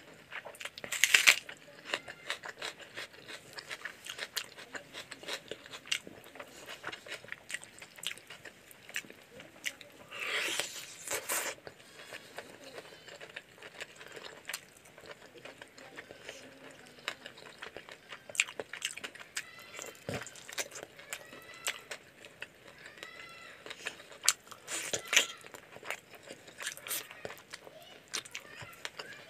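Close-up mouth sounds of a person eating chicken curry and rice by hand: steady wet chewing and lip smacking with many small clicks. Louder crunches come about a second in, again around ten to eleven seconds in, and near twenty-five seconds, from bites of raw red onion.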